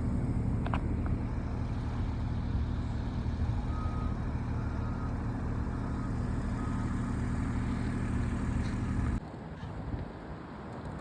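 LiuGong mini excavator's diesel engine running steadily under work. A few short high beeps sound in the middle. The engine sound drops away abruptly about nine seconds in.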